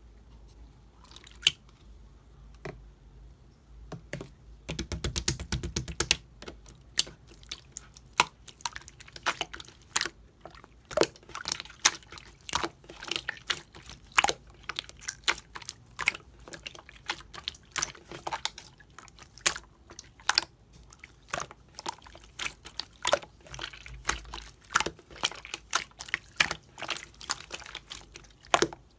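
Clear slime mixed with small bead parts being squeezed and pressed by hand, making rapid, irregular sticky clicks and pops. A few scattered clicks come first; the dense clicking starts about five seconds in.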